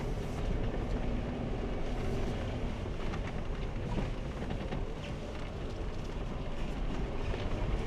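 Jeep driving slowly on a rough off-road trail: a steady low engine rumble with a few faint knocks.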